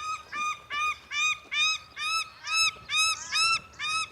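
A bird calling over and over, short honking calls about three a second, each rising and falling in pitch.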